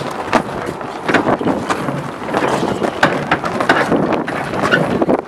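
Wind buffeting the microphone aboard a sailing schooner, with water rushing and splashing along the hull in short irregular gusts.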